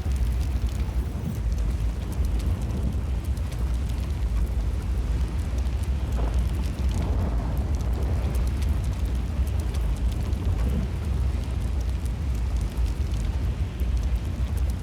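Strong wind rumbling steadily on the microphone, a deep continuous roar with no let-up.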